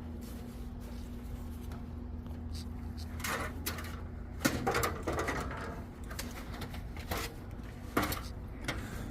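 Intermittent handling noises, a few short clatters and rustles of building material being worked, over a low steady hum.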